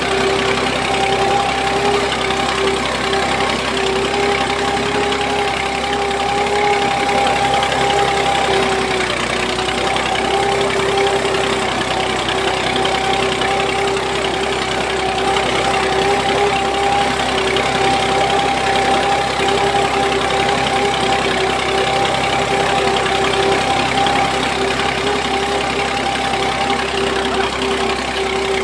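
Battery-powered toy tractor's small electric motor and gearbox running steadily with an even whine as it pulls a loaded trailer.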